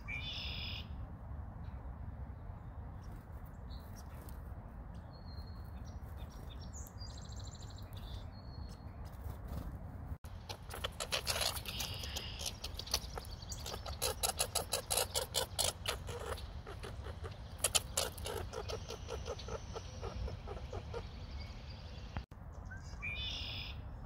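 Bursts of rapid, sharp chirping and chattering calls through the middle, with a short chirp at the start and another near the end, over a steady low rumble.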